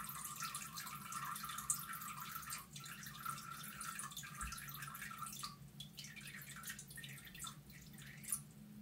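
A cat urinating into the water of a toilet bowl: a steady trickling stream that thins out about halfway through into scattered drips and stops near the end.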